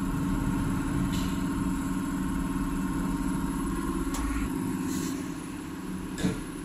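Steady machine hum from a running CRS390 common-rail injector test bench, with a few light clicks over it. Its deepest rumble drops away about two-thirds of the way through, leaving the hum.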